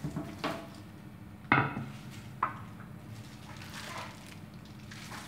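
A few sharp knocks and clatters as a wooden cutting board and a kitchen knife are picked up and set down on a table, the loudest about one and a half seconds in, over a steady low hum.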